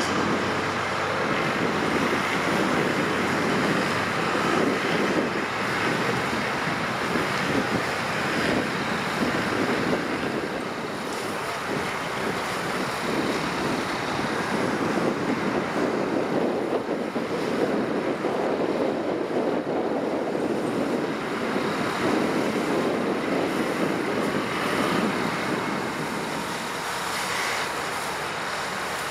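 Highway traffic rushing past close by, a steady noise that swells and eases as vehicles go by.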